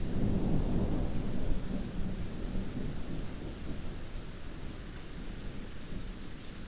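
Heavy rain falling steadily, with a low rumble of thunder that is loudest in the first two seconds and dies away by the middle.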